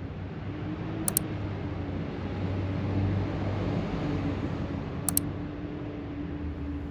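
Steady outdoor city background noise with a low hum, swelling a little mid-way, broken by two sharp double clicks: one about a second in and one about five seconds in.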